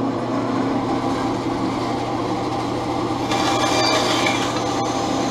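Bandsaw running steadily with its motor hum. About three seconds in, the blade starts cutting through a small wood pen blank, adding a higher sawing hiss.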